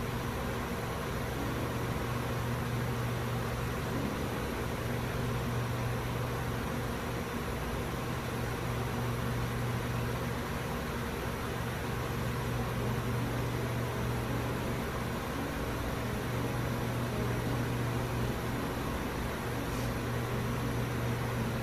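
Steady low machine hum with a haze of noise over it, even throughout, such as a fan or shop machinery running.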